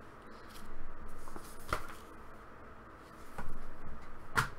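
Handmade paper booklets being handled: soft paper rustling with two sharp taps, about two seconds in and again near the end.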